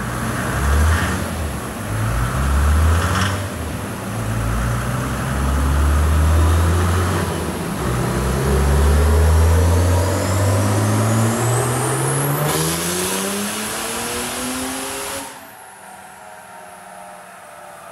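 Mercedes OM606 six-cylinder turbo-diesel in a Nissan Patrol, running a full-throttle pull on a chassis dyno. Its revs climb and drop back at gear changes about one, three and seven and a half seconds in, then rise in one long pull with a faint rising whistle. About fifteen seconds in the throttle closes and it falls to a much quieter idle.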